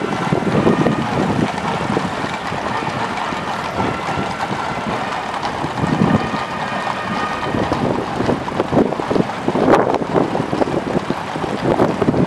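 Road vehicles driving past in traffic: a steady, noisy rumble that swells and eases irregularly.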